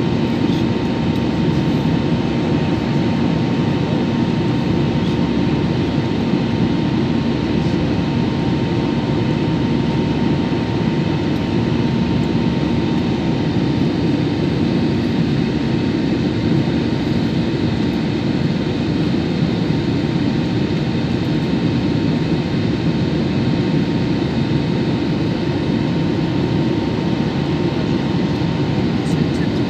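Steady cabin noise of an Airbus A320-family airliner in its climb: jet engines running and air rushing past the fuselage, heard from a seat over the wing, with a steady hum through it.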